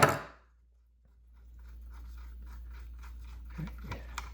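A sharp metallic clunk at the start, then faint, rapid small clicks of a hand ratchet backing out a bolt from a Powerglide valve body.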